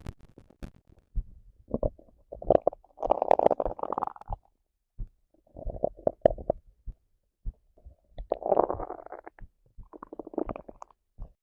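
Hungry stomach growling and gurgling in several irregular bursts with short quiet gaps between them, the longest and loudest about three seconds in.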